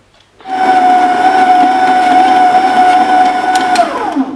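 SilverCrest stand mixer motor starting about half a second in and running with a steady whine while the dough hook turns flour and oil in the steel bowl. Near the end it is switched off and winds down, the whine falling in pitch before it stops.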